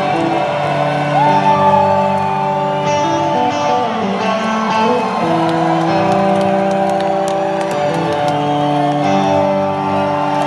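Live rock band starting a slow song: electric guitars playing long held notes, with a note sliding up about a second in, and scattered crowd whoops, heard in a large arena from the audience.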